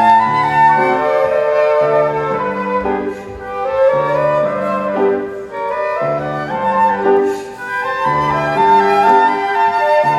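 Flute ensemble playing a slow melody in held notes, with lower parts sustaining notes beneath it and brief breaths between phrases.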